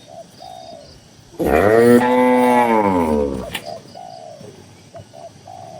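A cow moos once, a loud call of about two seconds starting about a second and a half in, its pitch rising and then falling. Short, soft dove or pigeon coos repeat in the background.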